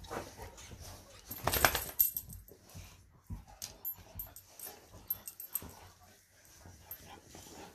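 Large Presa Canario dogs shifting about against a person on a sofa: rustling and a loud burst of movement noise about a second and a half in, then scattered light metallic clinks from their collar buckles and studs.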